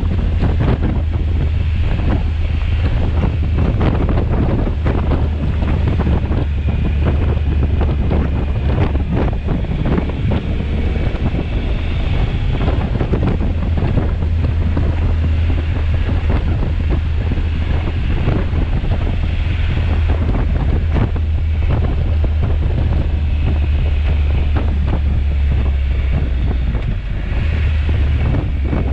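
Heavy wind buffeting the microphone of a camera on a moving motorcycle, with a steady low rumble from the bike's engine underneath.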